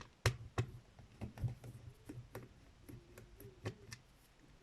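Light, irregular clicks of the small plastic parts and tiny screws of a disassembled car-alarm key fob being handled and set down, about a dozen in all.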